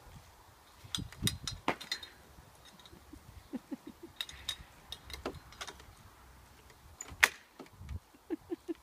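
Scattered clinks and clicks from a swing set's metal chains and trapeze-bar hardware as a child climbs onto the bar and hangs upside down from it, with one sharp click about seven seconds in and a run of short squeaks near the end.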